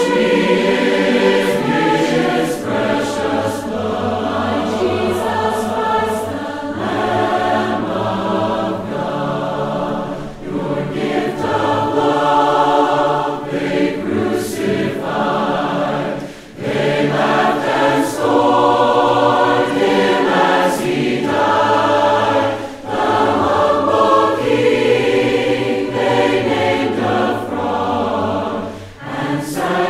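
A cappella vocal ensemble singing a slow gospel hymn in multi-part harmony, voices only with no instruments, with short breaks between phrases.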